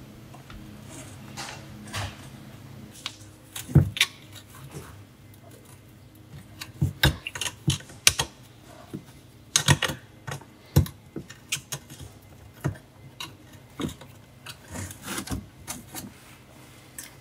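Irregular metallic clicks and clinks of steel pedal-box parts being handled and fitted by hand, as small pins and clips are worked into the pedal pivot, with a few sharper knocks.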